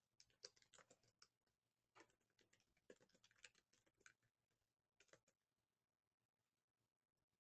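Faint computer keyboard typing: a few short, irregular bursts of key clicks.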